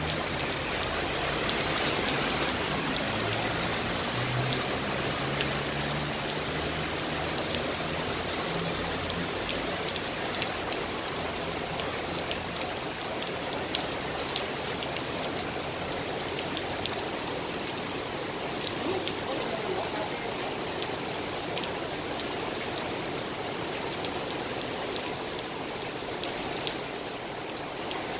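Heavy rain falling steadily on pavement and road, with scattered sharp drops striking close by. A low engine hum of passing road traffic sits under the rain for the first several seconds, then fades out.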